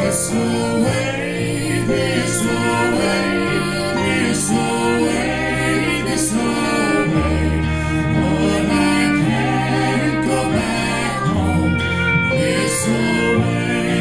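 A country-folk band playing live: acoustic guitars, electric bass and drums, with a woman singing the melody.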